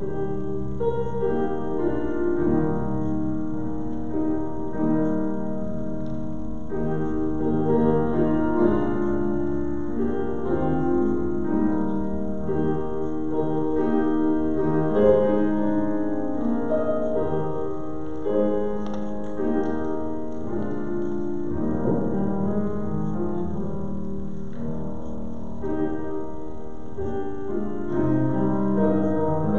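Piano playing instrumental music: a continuous run of held notes and chords, with no singing.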